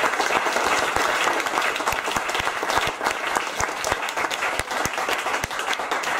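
Audience applauding, many hands clapping together; the applause dies down in the second half to scattered claps.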